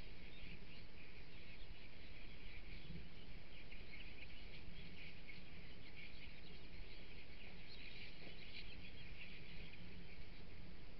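A flock of bramblings calling together while feeding on the ground: a dense, continuous chatter of many short, overlapping calls, busiest about two thirds of the way through, over a low steady rumble.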